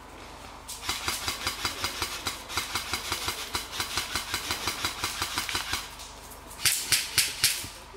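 Airsoft gun fire: a long rapid string of sharp shots, about six a second, lasting some five seconds, then four louder single shots in quick succession near the end.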